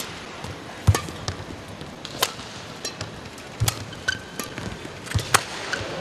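Badminton rally: rackets hitting the shuttlecock with a series of sharp cracks about a second or so apart, alongside players' footwork thudding on the court.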